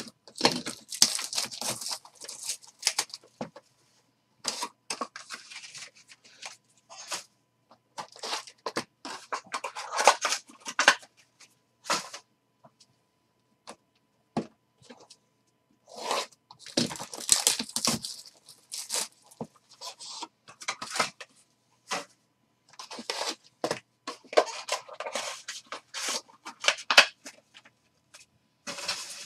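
The plastic wrap and cardboard of a 2020-21 Panini Absolute basketball card box being torn open, and its foil card packs handled. The sound comes as irregular spells of tearing and crinkling, with short silent gaps between them.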